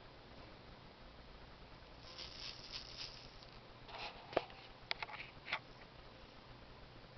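Faint rattling of a plastic baby rattle with loose beads inside: a short run of ticks about two seconds in, then a few sharper clicks between about four and five and a half seconds in.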